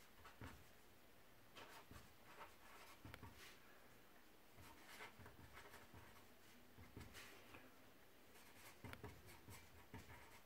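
Faint scratching of a felt-tip marker writing on paper, in short strokes at irregular intervals.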